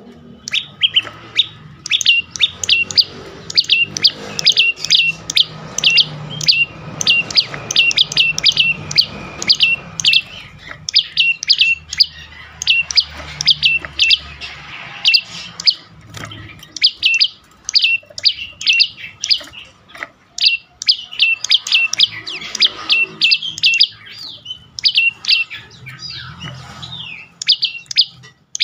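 Prenjak lumut (a prinia) calling a fast series of sharp, down-sweeping chip notes, several a second, in bursts with short pauses.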